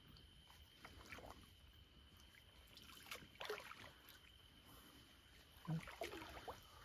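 Faint splashing and sloshing of water around a landing net as a grass carp is netted, in a few short bursts, with louder splashes about three seconds in and near the end.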